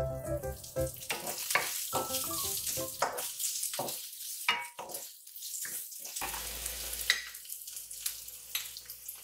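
Sliced onion, chilli and garlic sizzling in oil in a nonstick wok, stirred with a wooden spatula that scrapes and knocks against the pan. The sizzle eases off about halfway through.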